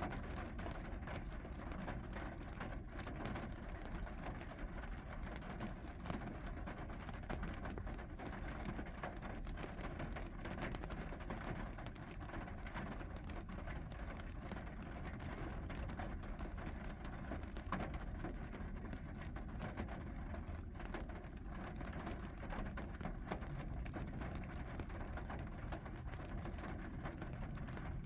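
Steady rain falling: an even hiss of many fine drops pattering, over a low rumble.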